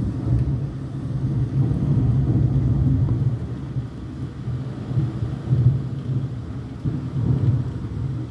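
Long rolling thunder: a deep rumble that builds quickly, is loudest over the first few seconds, then swells twice more as it fades.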